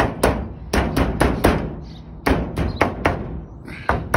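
Planishing hammer striking a copper sheet laid over a heavy oak block: quick, sharp blows about four a second in short runs with brief pauses, pounding creases out of the copper.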